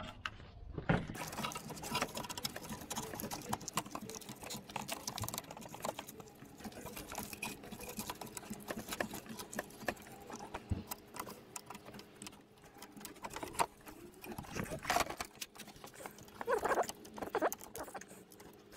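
Rustling, scratching and small plastic clicks as gloved hands work a car's wiring harness and electrical connector. There are a few louder clicks near the end.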